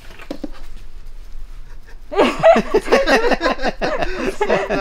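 People laughing and talking loudly, starting about two seconds in.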